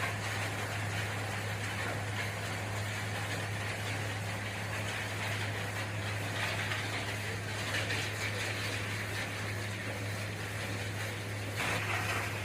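Machinery running steadily: a constant low hum under a noisy hiss, with a slight shift in the noise near the end.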